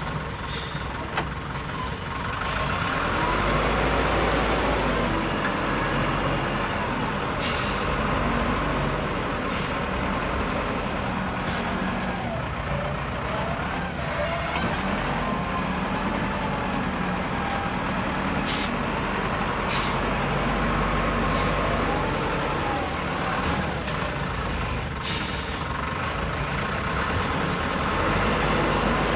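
Steady engine-like vehicle rumble with a few sharp clicks.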